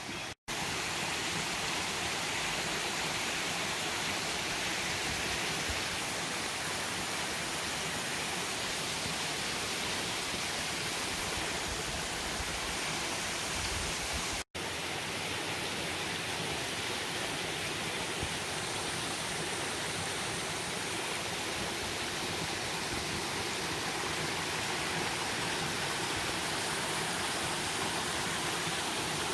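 Creek water rushing steadily. Two brief cut-outs break it, one about half a second in and one about halfway through.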